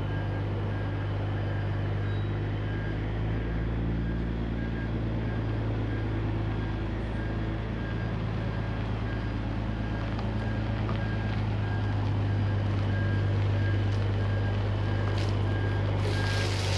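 Heavy diesel engine running steadily, with a faint high beep repeating at even intervals throughout. A short hiss comes near the end.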